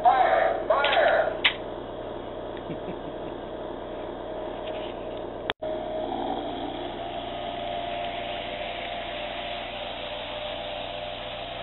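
Lionel toy train running on three-rail track: a steady whir from the locomotive's electric motor and wheels, with a few louder sounds in the first second or so. The sound cuts out for an instant about five and a half seconds in.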